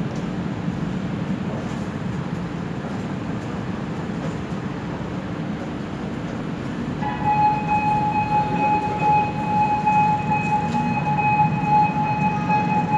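Metro train approaching through the tunnel into an underground station: a steady low rumble, then about halfway in a steady high-pitched tone comes in and holds as it gets louder.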